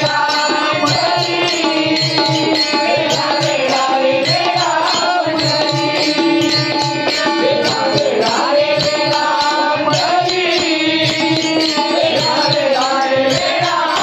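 Marathi devotional bhajan: a voice singing gliding melodic phrases over sustained pitched accompaniment, with drum and small hand cymbals keeping a steady beat.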